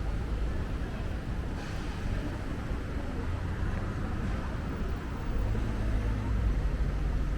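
Street traffic: a steady low rumble of passing vehicles that grows louder a little past halfway, with a short hiss about one and a half seconds in.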